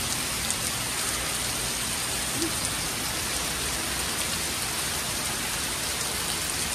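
Heavy rain falling steadily in a storm downpour, with scattered drops ticking close by.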